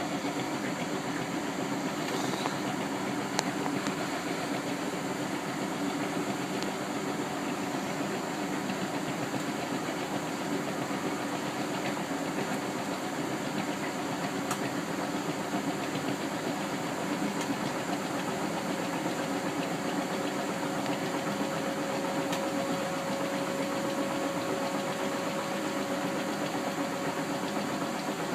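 Bendix 7128 washing machine running with a steady mechanical hum and hiss; a faint steady whine comes in about two-thirds of the way through.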